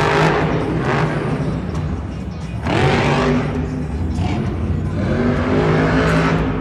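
Blue Thunder monster truck's supercharged V8 revving hard. The engine note dips, then sweeps up again about two and a half seconds in and once more near five seconds.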